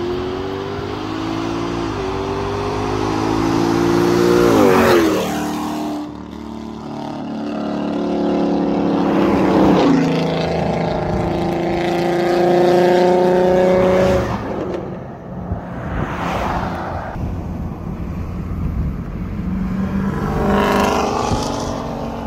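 Cars accelerating hard at full throttle in a roll race. One engine's pitch climbs through each gear and drops back at the shifts, about 5, 10 and 14 seconds in, then gives way to rougher engine and road noise as a car goes by near the end.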